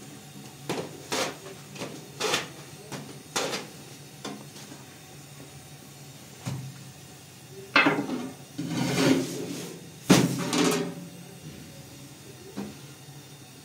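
A string of short, sharp knocks and clatters of household objects being handled and set down, then longer, louder scraping sounds after the middle.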